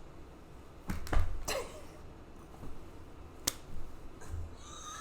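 A few sharp clicks, about four, with some soft low bumps, against quiet room tone.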